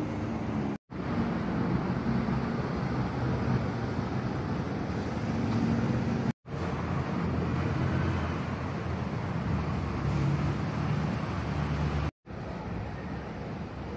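Steady outdoor city ambience of road-traffic noise with a low hum. It cuts to silence for a moment three times where clips are joined.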